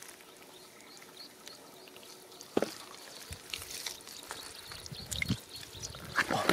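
Wet mud squelching and water dripping as a hand digs into a muddy puddle, with a sharp slap about two and a half seconds in and busier splashing near the end.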